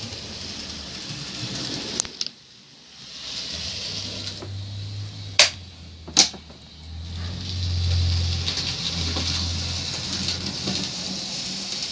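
N gauge model train running on the layout: a steady hissing whir that drops away briefly about two seconds in, with a low hum through the middle and a few sharp clicks, the loudest two just past the middle.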